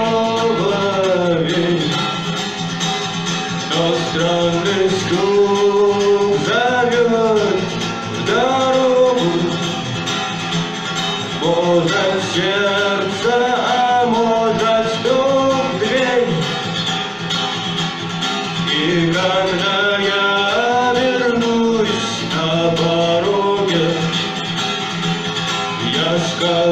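Rock band music without lyrics: a sliding melodic lead line over steady bass and drums.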